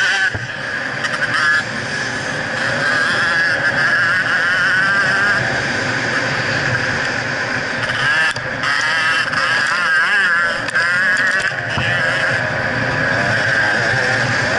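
2011 GasGas EC300's 300cc two-stroke single-cylinder engine running hard under a rider on a dirt track, its pitch rising and falling with the throttle. The throttle drops off briefly a few times.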